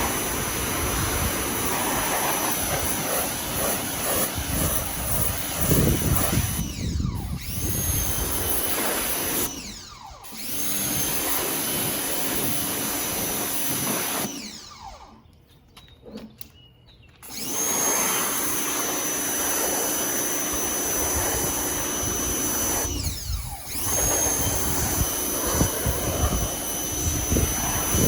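Ryobi 1600 psi electric pressure washer running and spraying, its electric motor and pump giving a steady high whine. Four times the trigger is let go, the pump cuts out and winds down, then starts back up when the trigger is pulled; the longest stop is about halfway through. The pump engages only while the trigger is held.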